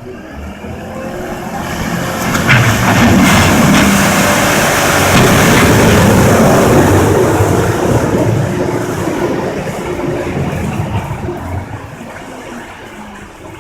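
A heavy vehicle's engine passing close, getting louder over about three seconds, holding loud for several seconds, then fading away.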